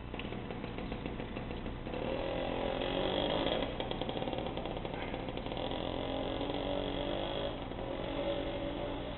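A motor vehicle engine running, getting louder about two seconds in and easing off near the end. Faint clicking comes through at times, likely the small Stirling engine's mechanism.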